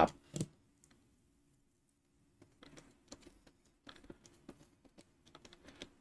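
Faint, scattered small clicks and taps as a wire is fitted into the screw terminal of a small circuit breaker, with a quiet stretch in the first couple of seconds.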